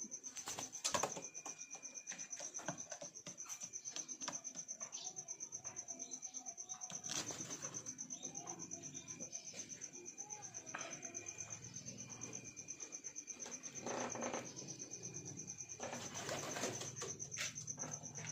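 Domestic pigeons flapping their wings in short bursts, with low cooing toward the end, over a steady high-pitched whine.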